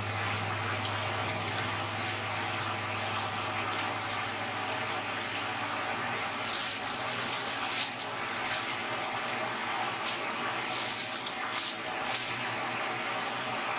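Aluminium foil crinkling in short bursts as it is handled around a foil-wrapped whole fish, loudest from about six seconds in, over a steady low hum.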